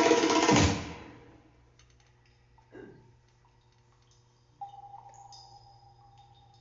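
Percussive music of wood-block-like strikes fades out about a second in. Then, over a low steady hum, a short falling tone sounds near the middle, and a faint ringing note starts a little later and slowly fades.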